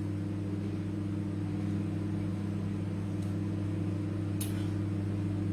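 A steady low electrical hum with overtones, as from an appliance or motor running in the room, unchanged throughout; a faint tick near the end.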